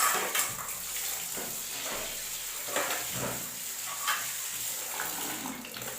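Water splashing and swishing as raw goat lungs and their froth are washed by hand.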